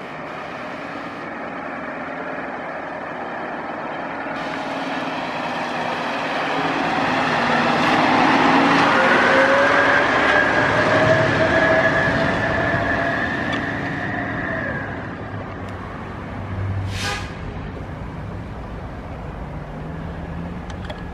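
Pierce fire engine driving off and passing close by, its diesel engine and drivetrain running with a steady whine that grows loudest as it goes past and then eases as it moves away. A brief hiss comes about three-quarters of the way through.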